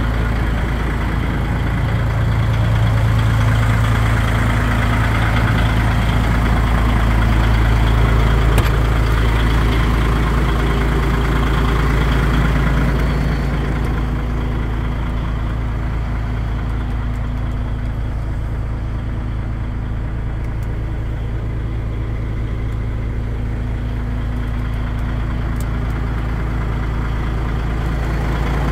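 DAF XF 95.480 truck's 12.6-litre straight-six diesel idling steadily. About halfway through it turns quieter and duller, heard from inside the cab.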